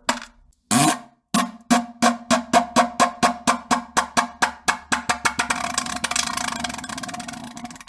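A long fart: a short rising blast about a second in, then a string of sharp pops at about five a second that speed up and run together into a continuous sputter, which stops near the end.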